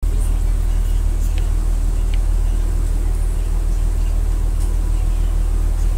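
A steady low rumble with a few faint light clicks above it.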